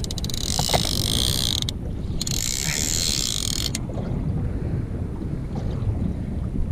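Fishing reel paying out line, its ratchet buzzing in two runs of a second or two each with a short break between: a shark is taking line off the reel.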